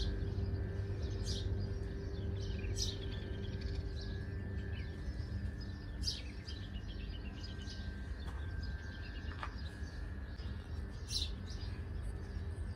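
Birds chirping in short, scattered calls every second or two over a steady low background hum.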